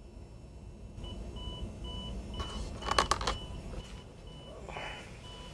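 Digital alarm clock beeping: short high-pitched beeps about three times a second, starting about a second in. Around the middle there is a brief cluster of knocks and rustles, the loudest sound.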